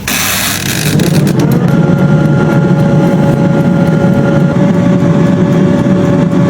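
A motor running steadily with a droning hum and a thin steady whine, building up to full strength about a second in.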